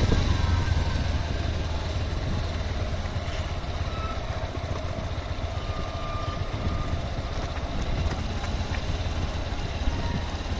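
Steady low rumble over a light hiss of outdoor background noise, with a few faint, short high tones in the middle.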